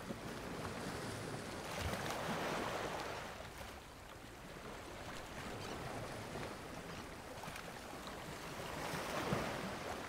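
Ocean waves washing in: a steady rush of surf that swells twice, about two seconds in and again near the end.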